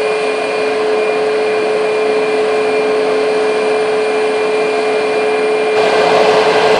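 Boeing 737 MAX's CFM LEAP-1B turbofan engines idling, a steady jet noise with a high whine. Near the end it changes abruptly to a louder, rougher jet noise.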